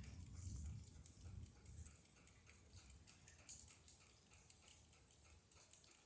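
Faint distant thunder rumbling low and fading out over the first two seconds, under a faint, regular high ticking about three or four times a second.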